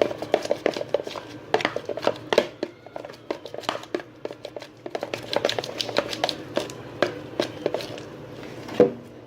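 Spoon stirring a thick, sticky slime mixture of flour, oil and dish soap in a bowl, clicking and scraping against the bowl several times a second in an uneven rhythm, with one louder knock near the end.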